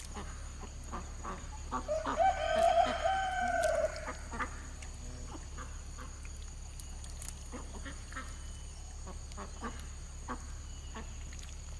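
A rooster crowing once, about two seconds in, one call lasting about two seconds, with faint scattered ticks around it.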